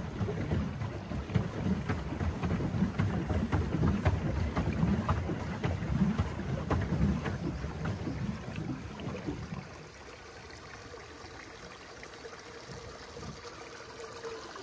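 Pedal boat on the water: its paddle wheel churning and splashing, uneven low rumbling with many small knocks, which drops away about ten seconds in, leaving a quieter steady wash.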